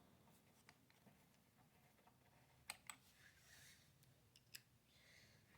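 Near silence with a few faint clicks of small engine parts being handled as screws are started by hand: two close together about two and a half seconds in, and one more about a second and a half later.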